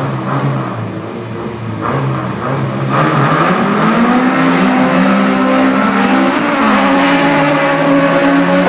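Four-cylinder import race cars, a Nissan B13 Sentra with an SR20VE and a B20 VTEC Honda Civic hatch, holding steady revs at the line, then launching hard about three seconds in. The engines climb in pitch, drop at a gear change near seven seconds, and climb again under full throttle.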